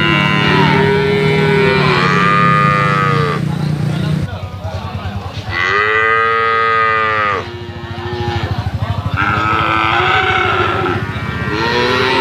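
Cattle mooing: a series of long moos, one after another, each rising and then falling in pitch.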